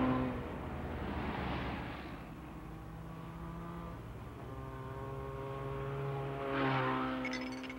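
A humming drone from the film's soundtrack, made of several steady layered tones, swells up and fades away, then swells again about seven seconds in. Near the end, light glassy tinkling flickers over it.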